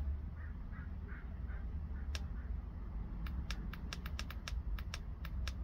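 Clicks of the buttons on a Vogma portable tire inflator being pressed over and over to step its target pressure down. A run of quick clicks, about five a second, starts about two seconds in.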